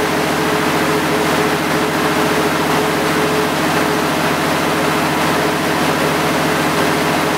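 DS-40 dust-suppression fog cannon running and spraying mist: a steady mechanical hum under a loud, even hiss of blown air and spray.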